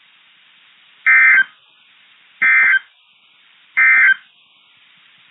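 Emergency Alert System SAME end-of-message code: three short bursts of high data tones, each about a third of a second long and a little over a second apart, marking the end of the alert.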